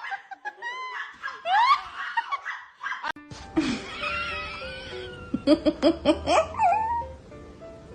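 A person laughing in rising whoops for the first few seconds, then music from about three seconds in.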